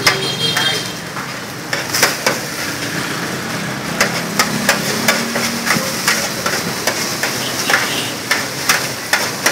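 Metal spatula clacking and scraping on a flat griddle as fried noodles are stir-fried and tossed, with sharp, irregular clacks a couple of times a second over a steady frying sizzle.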